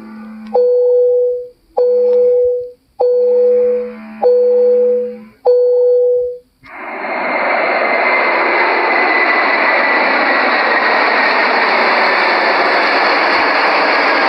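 Five short electronic cabin chimes, a single low tone each, about a second apart and each starting with a click. About seven seconds in they give way to the steady rush of jet engines and airflow as heard inside an airliner cabin.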